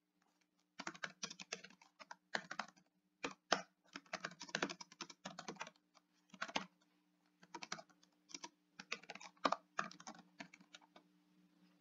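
Typing on a computer keyboard: irregular runs of quick keystrokes with short pauses between words, starting about a second in and stopping shortly before the end.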